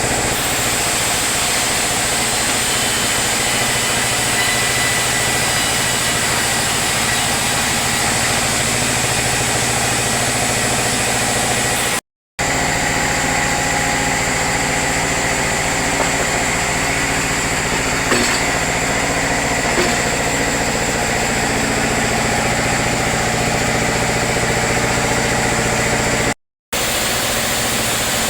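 Sawmill machinery running steadily: a continuous engine drone with steady hum tones and hiss. It cuts out to silence for a moment twice, about twelve seconds in and near the end.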